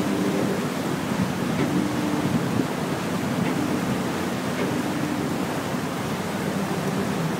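Passenger ferry under way: a steady rush of water along the hull and wind over the microphone, with a low hum from the ship's engine underneath.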